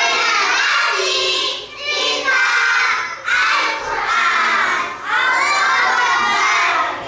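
A class of young children shouting a chant together, four loud phrases in a row with short breaks between.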